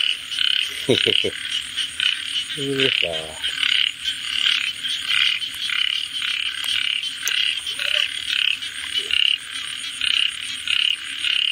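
A chorus of frogs calling, with short croaks repeating about twice a second. A steady high trill runs above them.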